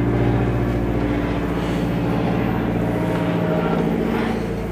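A steady engine drone, made up of several low, level tones that hold through.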